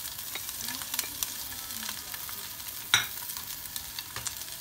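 Shredded boiled chicken sizzling as it is scraped from a plate into hot oil and garlic in a non-stick frying pan with a slotted turner, a steady frying hiss with small crackles. A sharp knock sounds once, about three seconds in.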